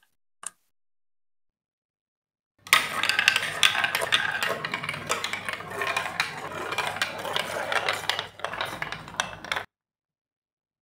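A plastic ball rolling and rattling down a Lego Duplo marble run's plastic chutes for about seven seconds, with many small clicks and knocks along the way, stopping abruptly. Before it, a short plastic click about half a second in as a track piece is fitted.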